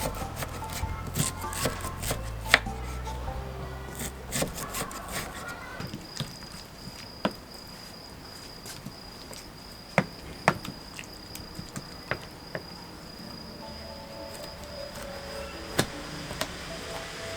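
Background music fades out after a few seconds and returns near the end, over scattered sharp knocks and clicks of kitchen work. From about six seconds in, a steady high-pitched trill of night grass insects runs underneath.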